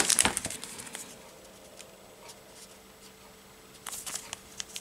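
Plastic and foil ration packaging crinkling as a small sachet is drawn from a plastic bag. The crinkling fades within the first half second, then comes back as a few light crinkles near the end, over a faint steady hum.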